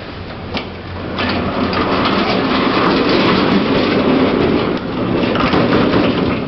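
Old gated 1970s Schindler lift running, a steady rumble and rattle that builds up about a second in and holds until near the end, with scattered clicks.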